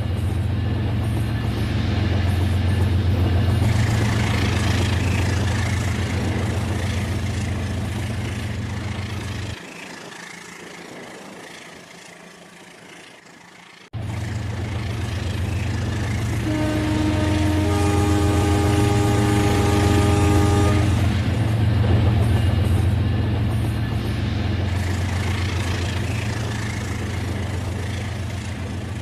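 RailKing model train running on its track with a steady low motor-and-wheel rumble that drops quieter for a few seconds about a third of the way in. Midway through the second half a horn sounds as one long chord for about four seconds over the rumble.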